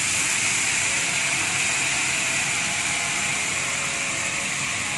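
Water poured into hot oil and spice paste in a non-stick wok, sizzling and hissing steadily as it boils off on contact. The hiss is loud and even, and cuts off suddenly at the very end.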